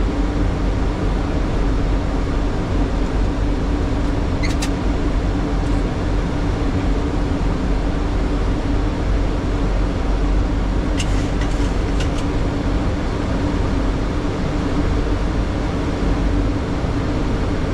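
Steady cockpit noise of a Boeing 737 on approach: rushing airflow and a constant engine and air-system drone with a steady hum. A few brief clicks sound partway through.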